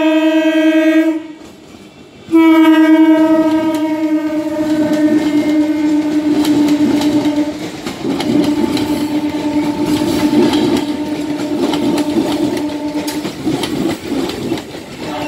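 Indian Railways EMU local train's horn: one blast that breaks off about a second in, then a second long blast held for several seconds. Under it the train runs through the station at high speed, with wheels clattering over the rail joints as the coaches pass.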